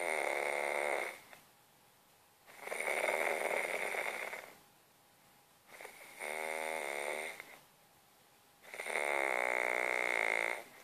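Snoring in deep sleep: four long snores, each over a second, about three seconds apart, with quiet pauses between breaths.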